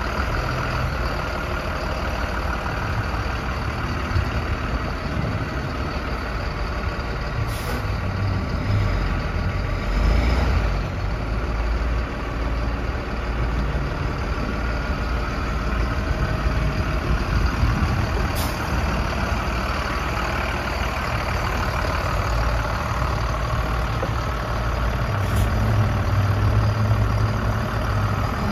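2006 Freightliner flatbed truck's diesel engine idling steadily, with a few brief sharp sounds over the top, the strongest about ten seconds in.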